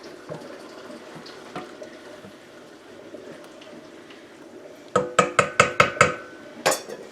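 Faint stirring of hot salt brine in a pot, then a spoon rapped about seven times in quick succession against the pot, each knock ringing briefly, with one more knock near the end.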